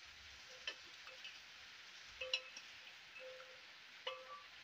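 A few light clinks of a metal spatula against a steel pot as boiled parwal (pointed gourd) are turned in sugar syrup.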